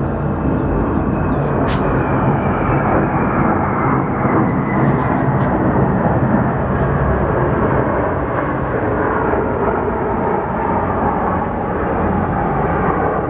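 Aircraft passing overhead: a loud, steady engine noise with a whine that falls in pitch over the first few seconds as it goes by.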